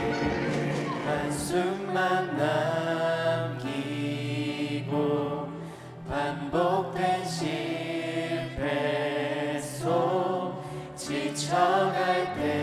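A Christian worship song sung in Korean, sung phrases with instrumental accompaniment.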